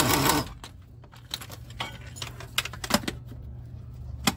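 An impact wrench spinning out a starter mounting bolt with rapid hammering, stopping abruptly about half a second in. Then scattered light metallic clinks and rattles as the loosened bolt and the tool are drawn out.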